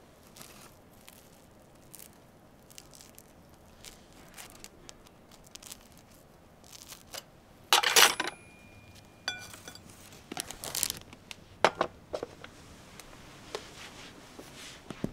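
A metal utensil clinking and scraping against a ceramic bowl of food in scattered clicks. The loudest is a ringing clink about eight seconds in, followed by a quick run of small clinks.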